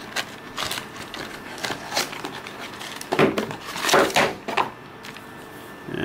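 Small cardboard box being opened by hand and its contents pulled out: scattered scrapes, taps and rustles of card, paper and packaging.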